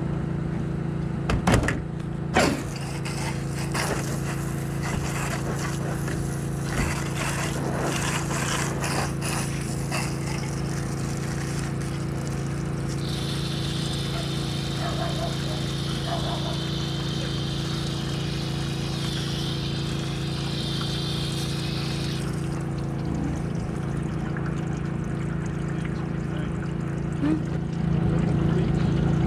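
Pressure washer running steadily, its motor humming under the hiss of the water spray, with a couple of sharp knocks about two seconds in and a high wavering tone for several seconds in the middle.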